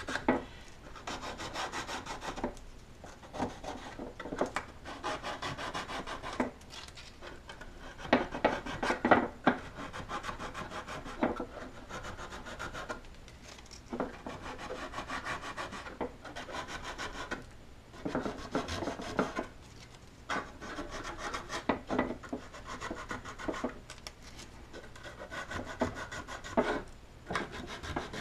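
Small sanding block rubbed back and forth along the edge of a thin laser-cut wooden part: quick rasping strokes in runs of a few seconds, with short pauses between runs.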